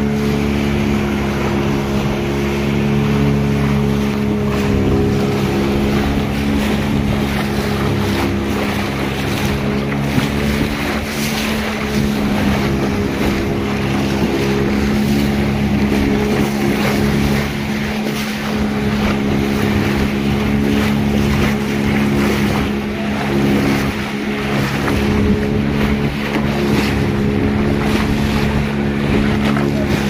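Motorboat engine running at a steady speed, with wind on the microphone and the rush of sea water.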